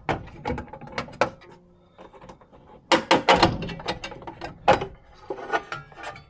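Clicks, knocks and clatter of a nut driver and small parts being handled as the nuts and the power-input shield come off inside a pinball machine cabinet, in irregular bunches with the busiest about halfway through.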